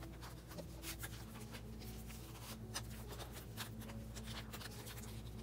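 Photocards being slid into plastic binder sleeve pockets: light, irregular rustling and soft clicks of card and plastic, over a faint steady low hum.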